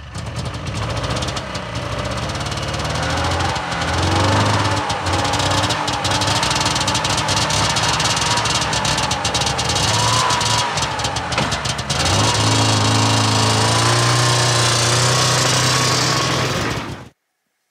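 Rotax 503 two-stroke twin of an old Lynx snowmobile running just after a cold pull-start, uneven for the first few seconds and then steady. It is revved as the sled pulls away about twelve seconds in. The sound cuts off suddenly near the end.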